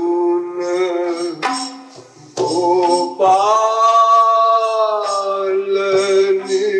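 A man sings a Hindi devotional song (pad) over musical accompaniment, drawing out long held notes, one of them sustained for about two seconds in the middle.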